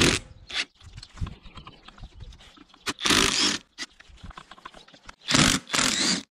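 Workshop sounds of a motorcycle being taken apart by hand: scattered light clicks and knocks of tools and parts, with short scraping rasps of about half a second, one around three seconds in and two in quick succession near the end.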